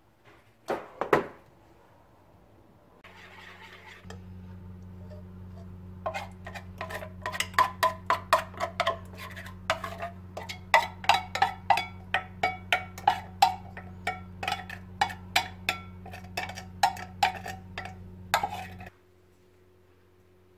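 A small electric motor hums steadily, switching on about three seconds in and cutting off near the end. While it runs, a utensil clinks repeatedly against a dish, roughly twice a second. Two sharp knocks come about a second in.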